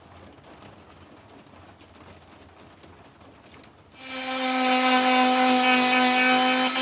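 After a few quiet seconds, a Dremel rotary tool starts about four seconds in and runs at a steady high whine while sanding down a wooden intarsia piece, with a rasping grind of the bit on the wood.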